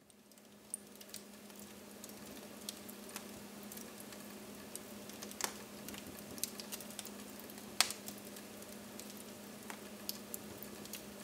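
Wood campfire crackling: irregular sharp snaps and pops over a soft hiss, the loudest pop about eight seconds in.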